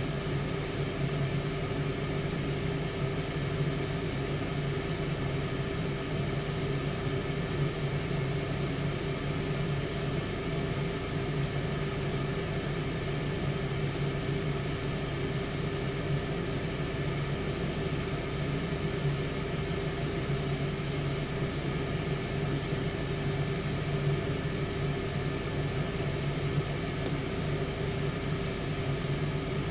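Tower air fryer oven running mid-cook: its fan gives a steady hum with an even rush of air.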